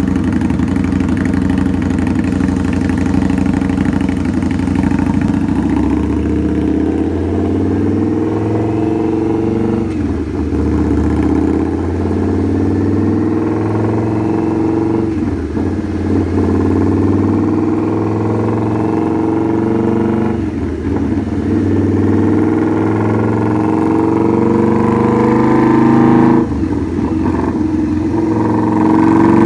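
Indian motorcycle's V-twin engine running hard on a roller dynamometer, its note climbing in pitch and dipping briefly four times about five seconds apart. It is louder after the last dip near the end.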